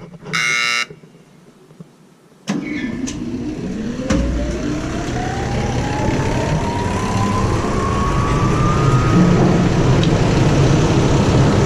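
A warning buzzer beeps once. About two and a half seconds in, a grain dryer's fan motor starts suddenly and spins up, its whine rising steadily for several seconds over a low rumble that grows louder.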